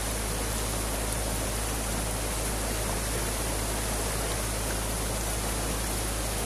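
Creek water rushing steadily through a breach torn in a beaver dam, a constant even rush of white water.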